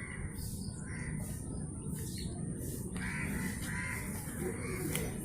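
Crows cawing several times, over a steady low rumble of wind.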